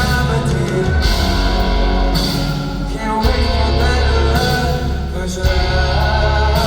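Live band playing a rock song through a concert sound system, with heavy bass, guitar and drums and a voice singing over it.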